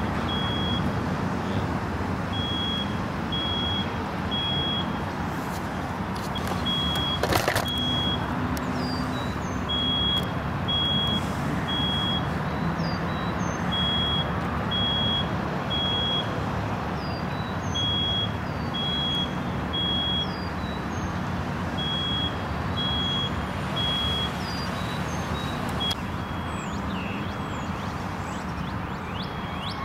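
A steady low rumble of vehicle engines, with an alarm beeping in groups of three every four seconds or so. That three-beep pattern is the one used by smoke and fire alarms. Birds chirp faintly high over it, and there is one sharp clack about seven seconds in.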